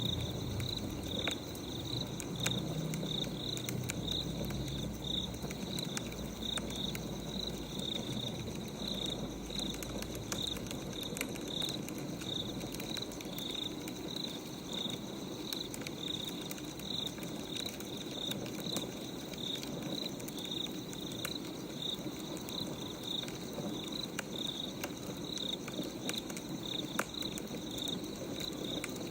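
Wood fire crackling with scattered sharp pops, under crickets chirping in a steady high-pitched rhythm of about two chirps a second.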